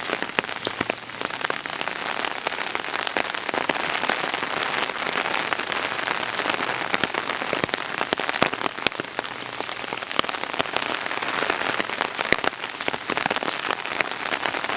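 Steady rain falling, with many sharp, close drop taps on an umbrella held overhead.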